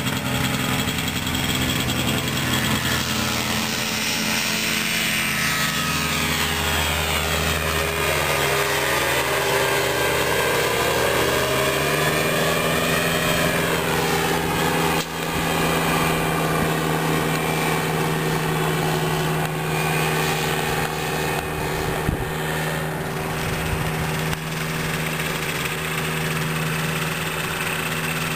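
Motorized hang glider (ultralight trike) engine and pusher propeller running steadily. Its pitch steps up about twelve seconds in, and there is a brief break about halfway through.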